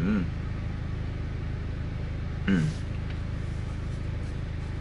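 A steady low hum, with a man's brief wordless vocal sound at the start and another about two and a half seconds in.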